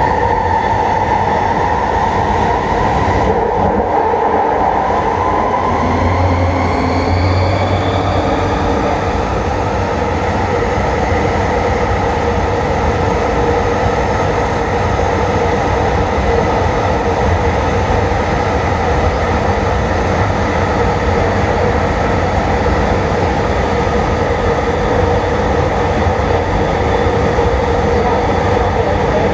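A Bombardier Mark II SkyTrain car running in a tunnel, heard from on board. Its propulsion whine rises in pitch over the first several seconds as the train picks up speed, then holds steady over the continuous rumble of the wheels on the rails.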